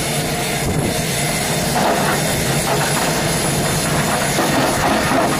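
Steady rumble of a Boeing 747-200 freighter's four jet engines on final approach.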